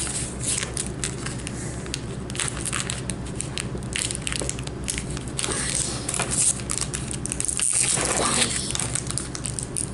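Plastic packaging of a Pokémon card box crackling and scraping in irregular bursts as it is forced open.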